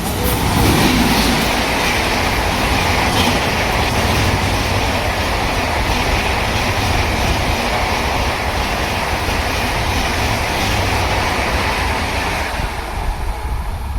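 A train passing at speed: a loud, steady rush of wheel and rail noise that dies away near the end.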